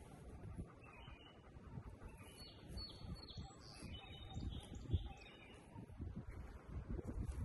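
Birds chirping several times in the middle, over gusty wind rumbling on the microphone that grows stronger near the end.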